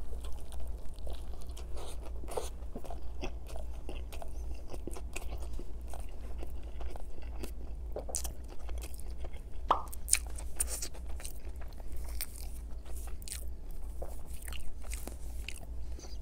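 Biting into and chewing a Burger King Whopper, close-miked: wet, crunchy mouth sounds with many small irregular clicks and smacks.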